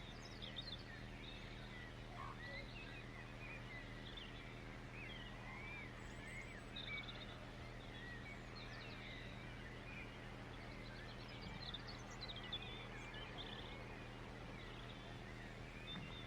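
Several songbirds chirping and warbling in quick, overlapping phrases, fairly faint, over a steady low hum.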